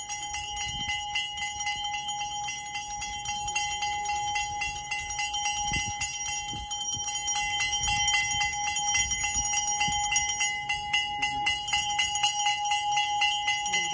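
Brass pooja hand bell rung rapidly and without pause during the flame aarti, a steady ringing tone renewed by quick repeated strikes.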